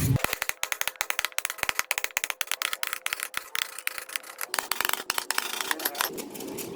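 A rapid, irregular run of sharp clicks and taps like a rattle, many a second, thinning out near the end.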